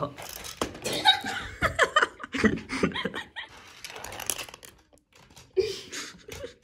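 Steel marbles rolling along plastic GraviTrax track and clicking as they drop into the landing piece and knock against one another, with a person laughing.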